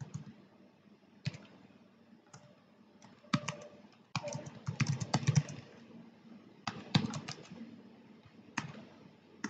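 Typing on a computer keyboard. A few single keystrokes come first, then quick runs of key clicks, the longest lasting about a second and a half near the middle.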